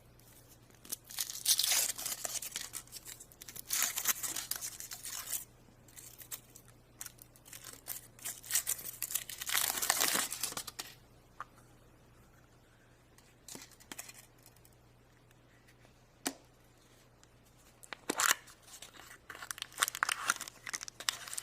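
Wrapper of a chocolate surprise being torn and crinkled open by hand. It comes in several spells of tearing and rustling separated by pauses, with a single sharp click in the quiet stretch near the end.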